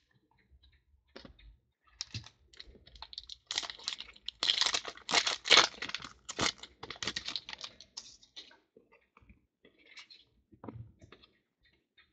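Foil wrapper of a football trading-card pack being torn open and crinkled: a dense crackling from about two seconds in, loudest in the middle, that thins out after about eight seconds into light clicks and rustles as the cards inside are handled and flipped.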